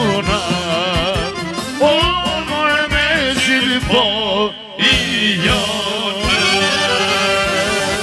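Albanian folk song in an instrumental passage: a lead instrument plays quick, ornamented runs over a drum beat, with a short break about halfway through.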